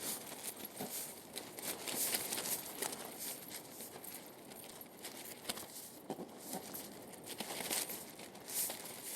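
Storm rain pattering hard: a dense hiss thick with sharp clicks of drops striking.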